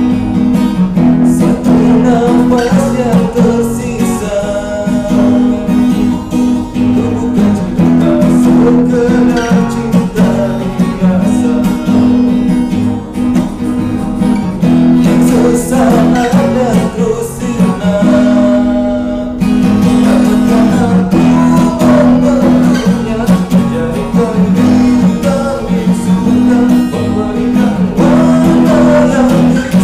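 A man singing a slow song to strummed acoustic guitar.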